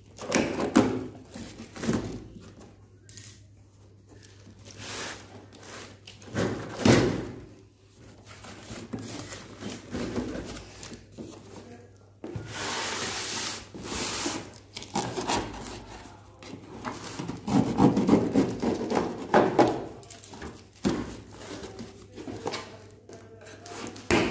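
Hands cutting and tearing open a cardboard shipping box and rustling the black plastic wrap inside, with scattered knocks and scrapes of the box against a hard floor. A longer tearing noise comes about halfway through.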